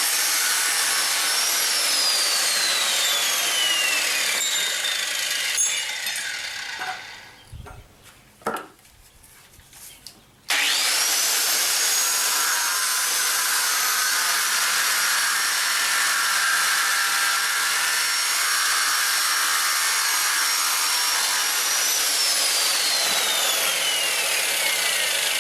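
Electric grinder running on steel with a loud, steady grinding hiss. Its motor whine slides down in pitch over the first few seconds, and the tool goes nearly quiet about six seconds in. About ten seconds in it switches back on abruptly with a rising whine that then holds steady, and the pitch drops again near the end.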